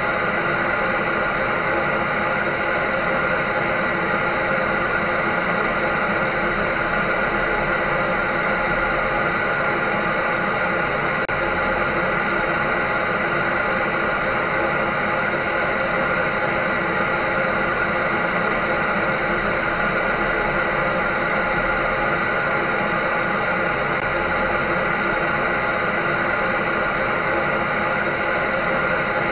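Dryer running steadily: a continuous whirring rush of air and motor with a steady hum, used as soothing white noise.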